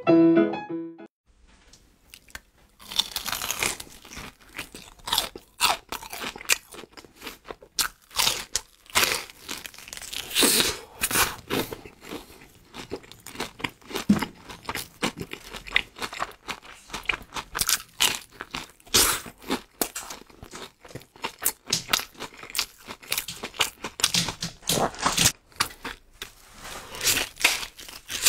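Close-up crunching and chewing of crispy batter-fried meat, with irregular bites and crackles from about a second in. A piano phrase ends right at the start.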